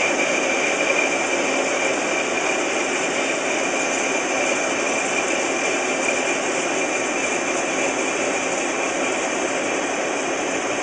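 Miyano ANC-45S CNC lathe running through its machining cycle: a steady mechanical whine with a constant high-pitched tone over a continuous hiss.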